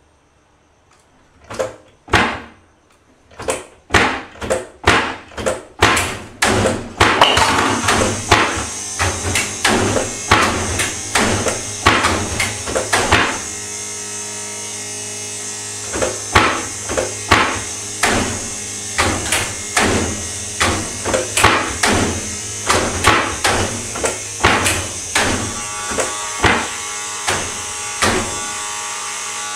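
A long series of loud knocks or bangs, starting sparse and speeding up to about two a second, then going on at a little over one a second over a steady electric hum, with a pause of a couple of seconds near the middle.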